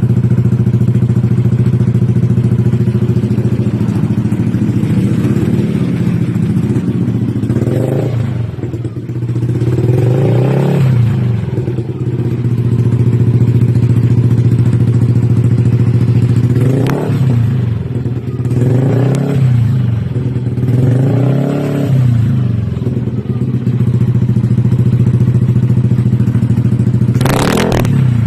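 Yamaha Aerox 155 scooter's single-cylinder engine idling loudly through an SC Project exhaust, blipped about half a dozen times, each rev rising quickly and falling back to idle. A single sharp crack comes near the end.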